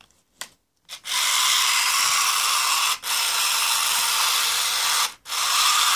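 An original Tiger Electronics Furby's internal motor and gearbox whirring as the toy powers up on fresh batteries and works its eyes, ears and mouth. The whir starts about a second in and runs in three stretches, with brief breaks about three and five seconds in.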